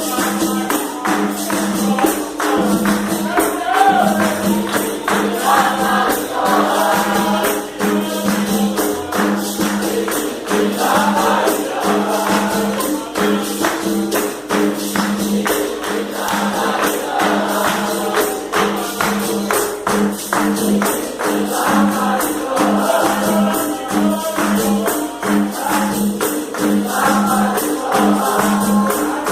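Capoeira music: voices singing in recurring phrases over a jingling pandeiro and the steady pulsing note of a berimbau.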